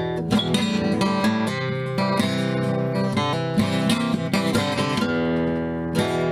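Background acoustic guitar music, strummed, with a steady run of notes.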